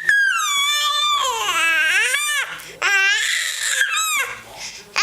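A baby making high-pitched squeals, about four long vocalisations in a row that slide up and down in pitch.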